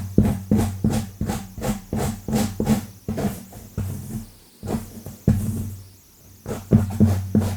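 Long fingernails scratching fast and hard through hair and scalp close to the microphone, in quick repeated strokes of about two to three a second, each with a dull rub and a scratchy hiss, with a brief lull a little past the middle.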